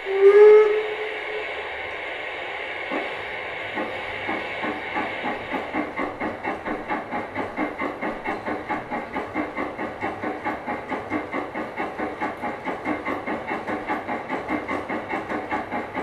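Digital sound decoder of a G-scale HF110C steam locomotive model playing through its speaker: a short departure whistle, then steam hiss, then exhaust chuffs that begin slowly about three seconds in and quicken to a steady beat of about four a second. The chuffs come from original HF110C recordings, timed to the wheels by a pulse sensor.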